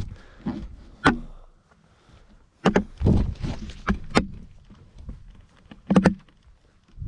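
A hiker's footsteps on a trail: irregular sharp clicks and scuffs, some in quick pairs, over a low rumble.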